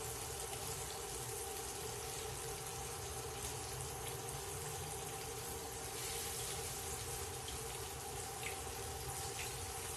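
Breaded fish fillets frying in hot peanut oil in a cast iron pan: a steady, even sizzle, slowed as the fish's excess moisture cooks out and the oil climbs toward 350°F. A faint steady hum runs underneath.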